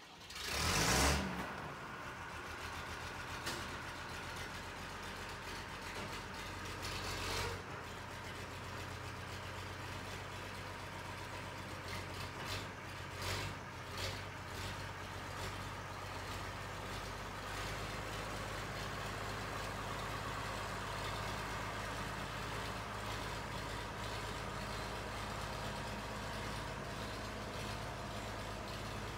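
County four-wheel-drive tractor's diesel engine starting up about a second in, then running steadily as the tractor pulls forward, with a few knocks partway through.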